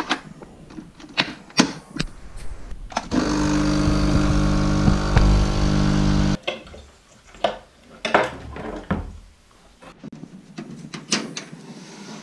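A coffee machine's pump runs with a steady, loud hum for about three seconds while brewing into a mug, with scattered clicks and knocks of handling the machine and cup before and after it.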